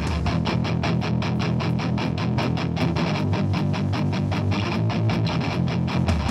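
Hardcore punk band playing live, an instrumental passage of distorted electric guitars, bass and drums driving at a fast, even pulse.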